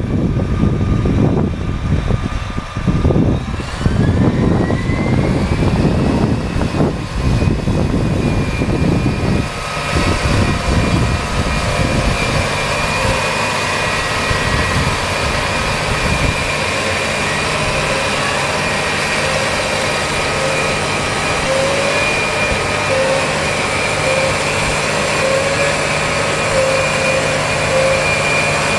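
John Deere 8335R tracked tractor's six-cylinder diesel running under load while pulling a Baselier rotary cultivator/ridger, with a whine that rises in pitch over a few seconds and then holds steady. An uneven low rumble fills the first ten seconds, after which the engine and implement drive run steadily.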